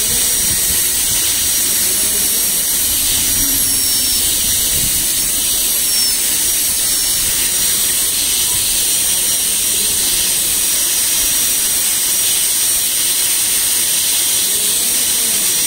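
High-speed air-turbine dental handpiece running steadily, a loud high hiss with a thin whine, as its bur cuts a model incisor.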